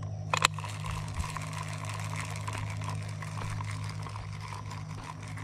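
Fishing reel being cranked to wind in line, its gears giving a rapid ticking, with a sharp click about half a second in. A steady low hum runs underneath.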